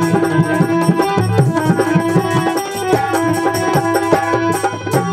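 Instrumental interlude of a Hindi devotional bhajan: a harmonium holds and moves between sustained chords and melody notes over a quick, steady tabla rhythm.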